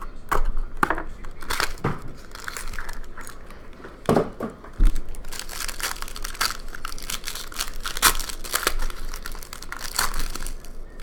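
A sealed trading card box and its wrapper being torn open by hand: irregular crinkling and tearing of plastic and foil, with a couple of louder handling thumps about four and five seconds in.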